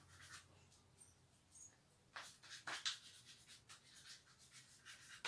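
Chalk writing on a blackboard: faint scratches and taps as letters are stroked out, with a few sharper taps about two to three seconds in.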